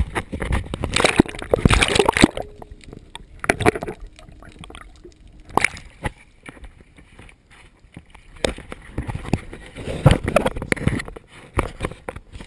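Water sloshing and splashing against a kayak, with irregular knocks and clatter from handling gear in the boat. It is loudest in the first couple of seconds and again about ten seconds in.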